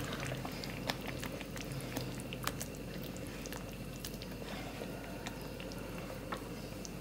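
Thick peanut sauce stirred with a spatula in a pan as it simmers: soft wet squelching with scattered light clicks of the spatula against the pan.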